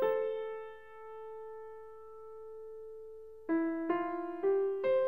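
Background piano music: one held note that slowly fades, then from about three and a half seconds in, a melody of single notes at about two a second.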